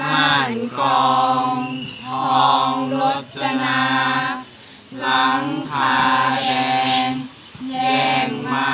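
Small mixed group of young male and female voices chanting Thai royal barge verse (kap he ruea) together, unaccompanied, in a string of held, sung phrases about a second long with short breaks for breath.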